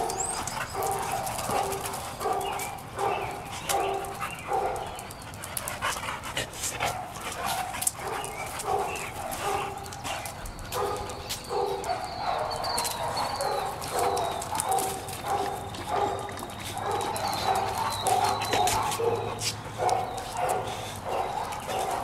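Dog barking over and over, about two barks a second with brief pauses.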